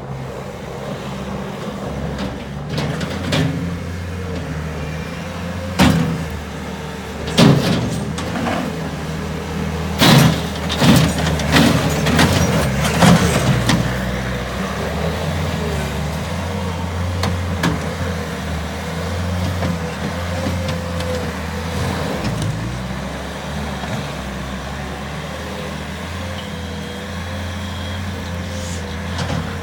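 Bobcat S220 skid-steer loader's diesel engine running steadily, with a run of loud, sharp metallic clanks and knocks between about 6 and 14 seconds in.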